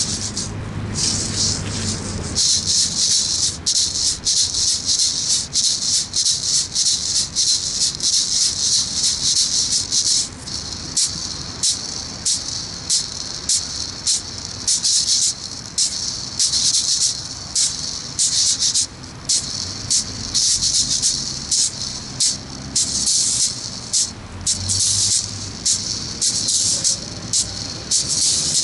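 Rattling juggling balls shaking in short, irregular bursts, several a second, as they are tossed and caught.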